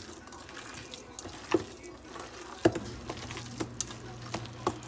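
Bare hands squeezing and kneading a raw ground-beef meatloaf mixture: irregular wet squelches and smacks, a few sharper ones every half second or so.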